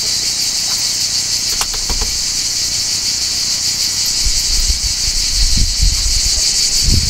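Loud, steady high-pitched insect chorus drone. A few sharp clicks come about two seconds in, and low rumbling thumps join in the second half.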